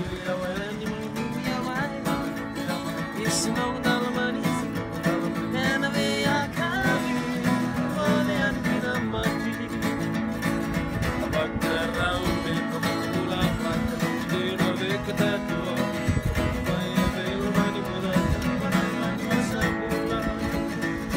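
Two acoustic guitars played together while two men sing along.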